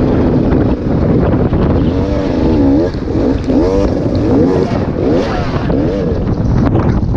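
Heavy wind buffeting the microphone, with an enduro motorcycle engine revving up and down in several quick swings through the middle.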